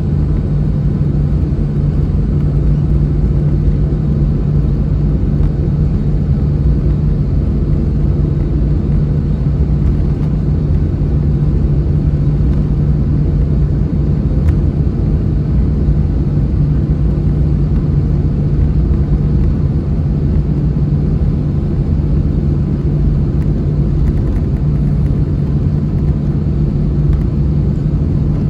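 Steady cabin noise of an Airbus A321-211 on the ground after landing: a low, unchanging hum and rumble from its CFM56 engines at low power and the air-conditioning.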